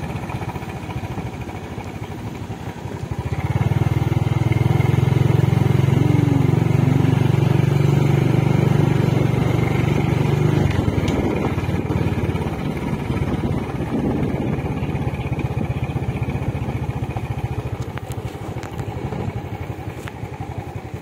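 Motorcycle engine running under way, with a fast, even firing rhythm. It gets louder about three seconds in, as if under more throttle, and eases back after about ten seconds.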